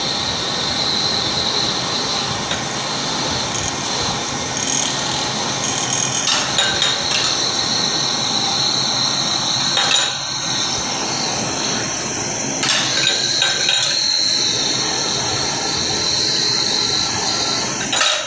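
A lathe spins a silver oil-lamp (samai) part while a hand-held cutting tool scrapes its surface. The result is a steady high whine over rough scraping noise, broken a few times by brief knocks and dips as the tool is shifted.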